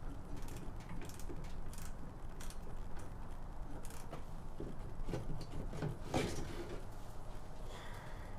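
Irregular clicks and knocks of hand tools and metal and plastic parts being handled during heater-core work on a car, with a denser cluster of knocks and scrapes about two-thirds of the way in. A steady low hum runs underneath.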